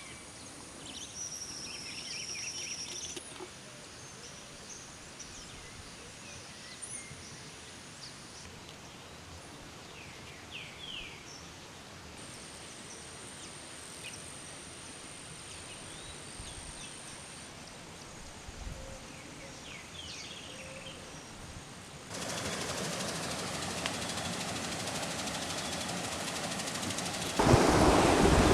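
Birds chirping over quiet outdoor ambience, with a steady high-pitched buzz that comes and goes. About 22 seconds in, the sound of running water starts, and it gets louder near the end.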